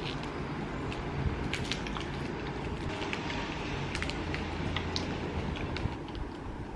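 Mouth chewing a crumbly peanut-filled marshmallow chocolate pie biscuit close to the microphone, with small scattered crunching clicks over a steady low background hum.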